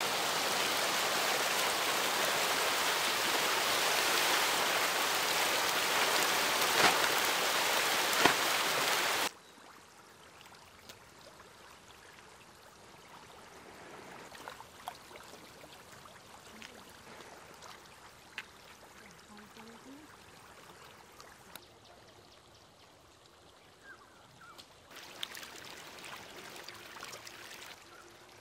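Loud, steady rush of splashing water, like heavy rain on a pond, which cuts off suddenly about nine seconds in. After that there is only a faint hush of open water with scattered small ticks and splashes.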